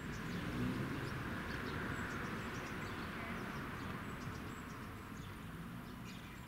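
A group of house sparrows chirping: many short, high chirps overlapping, over a steady background rumble.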